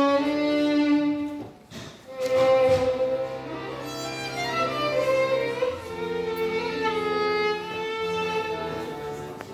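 Violin and accordion playing a duet: a bowed violin melody over held accordion chords and bass notes, with a short break about two seconds in before the playing resumes.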